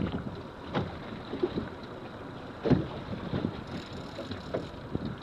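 Wind buffeting the microphone over water lapping against a small open boat's hull, with a few sharp slaps, the loudest about two and a half seconds in.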